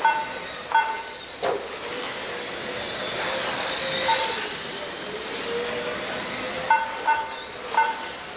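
Radio-controlled race cars' motors whining, rising and falling in pitch as they pass, loudest about four seconds in. Several short electronic beeps sound over them, and there is one sharp click about a second and a half in.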